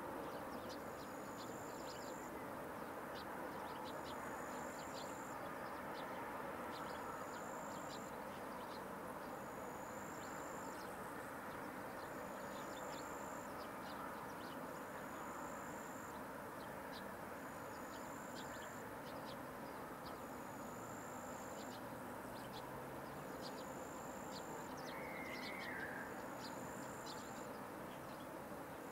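An insect chirping: a high, buzzing chirp about every two and a half seconds, each lasting under a second, over steady background noise.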